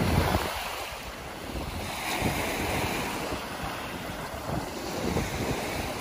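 Small sea waves washing onto a sandy shore, the surf hiss swelling about two seconds in, with wind buffeting the microphone, heaviest at the very start.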